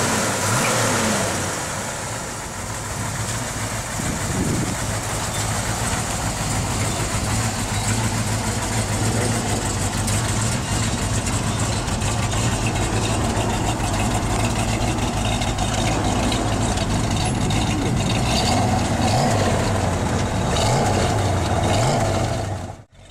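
Hemi V8 of a Plymouth 'Cuda muscle car idling with a steady, lumpy burble, with a few short throttle blips that rise and fall in pitch. The sound cuts off abruptly just before the end.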